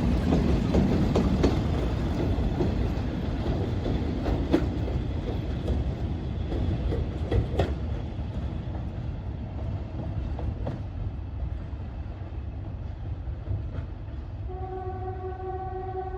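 Diesel locomotives running on the line, a deep rumble with occasional wheel clicks that slowly fades away. About three-quarters of the way through, a locomotive horn sounds a steady two-tone chord and holds on.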